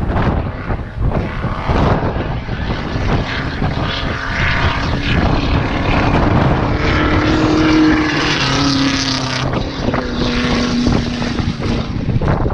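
Race car engine at hard throttle climbing the hill, growing louder as it approaches, its note stepping down in pitch at gear changes, with wind buffeting the microphone.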